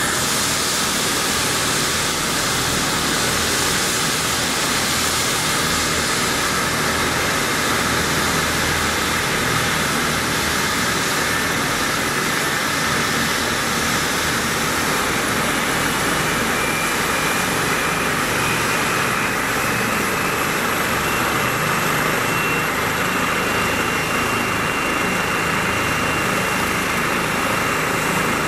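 Twin-engine turbine medevac helicopter running on the ground: a loud, steady rotor and turbine roar with a high whine that rises slowly over the second half.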